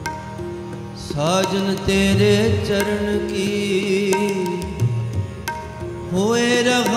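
Sikh kirtan: harmoniums holding sustained chords with tabla beating underneath, and a voice singing the shabad, sliding up into a note about a second in and again near the end.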